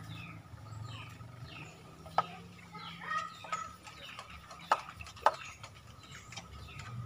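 Birds chirping over and over in short falling calls, with three sharp clicks cutting through, one about two seconds in and two close together near the end.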